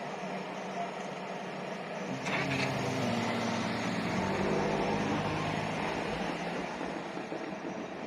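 A road vehicle's engine passing, with a sharp clack about two seconds in and a low engine hum that steps in pitch as it goes by.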